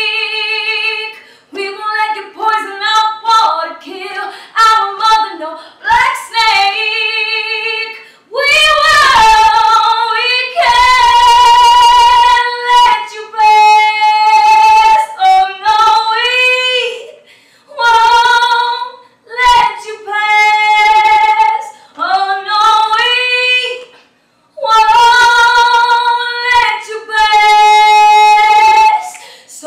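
A woman singing solo and unaccompanied: short phrases at first, then from about eight seconds in long high notes sung full-voice and held with vibrato, broken by brief pauses.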